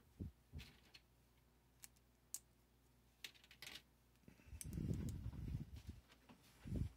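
Plastic Lego pieces clicking as a hand picks through them on a metal baking tray: scattered light clicks, then a longer rattle of rummaging from about four and a half to six seconds in, and one more short rattle near the end.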